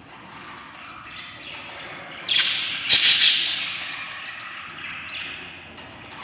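Budgie chicks in a nest box giving harsh squawking calls, which swell into a loud burst about two seconds in with a sharp knock just after, then fade back to steady calling.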